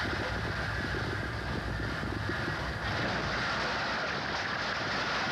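Earthquake shaking a shop: a continuous deep rumble with dense, steady rattling and clattering of goods on the shelves.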